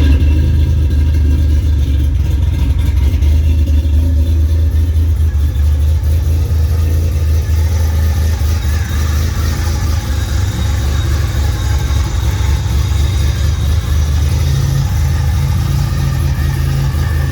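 A car engine running steadily with a deep, low exhaust note, rising and falling a little in places.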